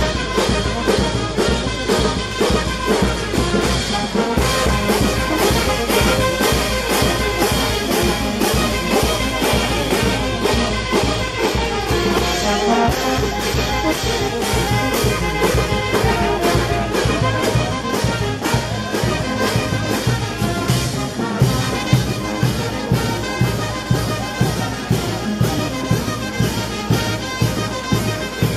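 Brass band playing dance music: trumpets and sousaphones over a steady beat.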